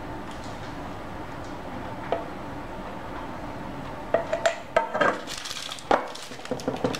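A spatula scraping and knocking against a stainless steel mixing bowl as the last of the batter is cleared out. It comes as a quick run of clinks and scrapes starting about four seconds in, with one sharp knock near the end.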